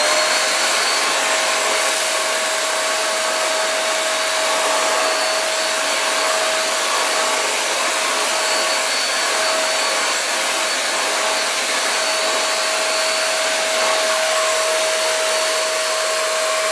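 Shark Multi-Task cordless stick vacuum running steadily with an attachment fitted, its clogged filter just cleared: an even motor whine over a rushing hiss of air.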